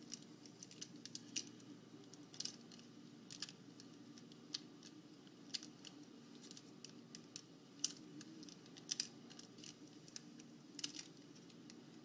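Faint, irregular crinkles and clicks of a trading-card pack wrapper being picked at by hand, the pack hard to open, over a low steady hum.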